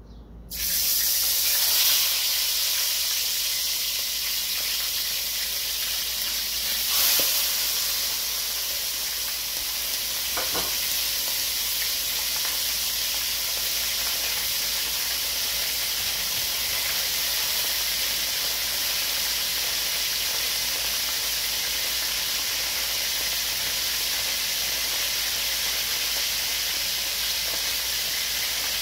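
Two whole spice-marinated pigeons go into hot oil in an aluminium pot about half a second in. They set off a sudden loud sizzle, then fry with a steady hiss, with two short clicks a few seconds apart.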